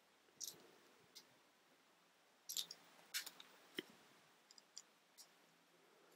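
Small plastic Mega Bloks bricks clicking and clattering against each other as they are picked up and handled, in a string of short, irregular clicks with the loudest a little past the middle.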